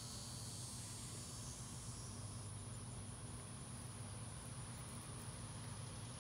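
Faint outdoor garden ambience: a steady high-pitched insect drone over a low, even hum.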